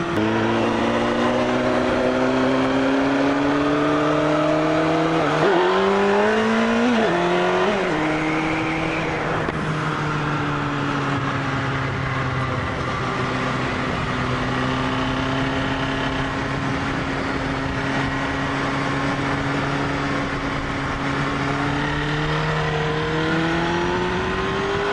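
Honda CBR sport bike engine running at speed with wind rushing past: two quick gear changes about six and seven seconds in, then the engine note drops and holds lower through a sweeping ramp, and rises again as the bike accelerates near the end.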